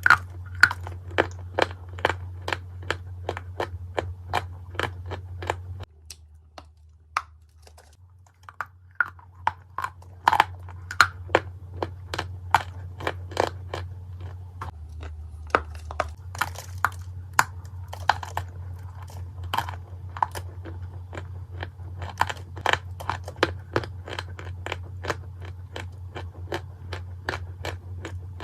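Lumps of Turkestan clay, an edible clay, crunching and cracking apart in a long run of crisp snaps, about two a second, with a sparser, quieter spell about six to eight seconds in. A steady low hum runs underneath.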